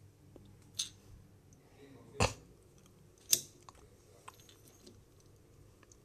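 Three sharp clicks and knocks, the middle one loudest, then a few faint ticks: a small toy locomotive being handled and set down on the floor.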